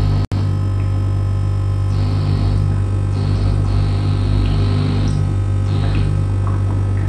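Electronic noise music: a loud, steady low hum with layered held tones, and patches of hiss that swell and fade every second or so. The sound drops out for an instant about a third of a second in.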